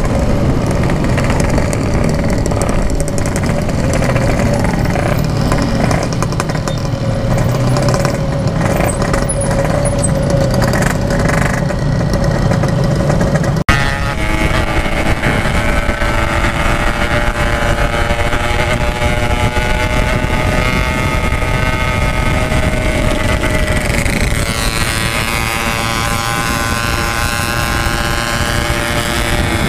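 Yamaha RX-King 135's two-stroke single-cylinder engine running under way through a Packing Power exhaust, mixed with wind rush. About 14 seconds in the sound changes abruptly and the engine's tone stands out more clearly, drifting gently up and down in pitch.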